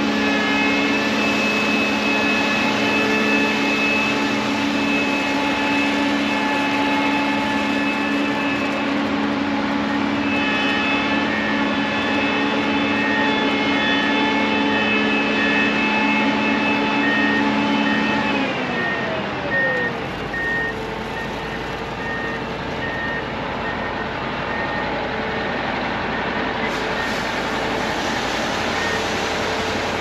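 Heavy harvest machinery running steadily, a Gleaner S77 combine unloading corn through its auger, with a steady hum that drops in pitch about two-thirds of the way through. A short electronic beep repeating about once a second joins about a third of the way in.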